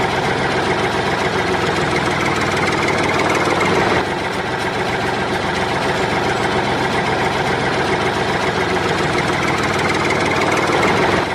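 A tractor engine running steadily at idle, with a slight drop in level about four seconds in.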